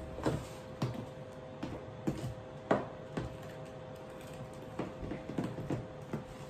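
A utensil scraping and tapping in a plastic tub of thick cake batter: irregular light clicks and scrapes, with one louder knock about two and a half seconds in.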